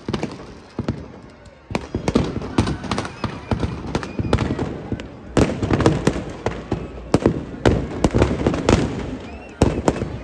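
Firecrackers packed inside a burning Ravan effigy going off in rapid, irregular bangs and cracks. They are sparse for the first couple of seconds, then come thick and fast.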